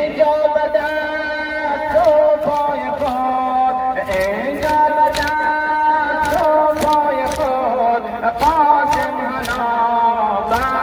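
A chanted Muharram mourning lament (noha), held on long ornamented notes, over sharp slaps in a steady beat about twice a second from mourners beating their chests (sineh zani).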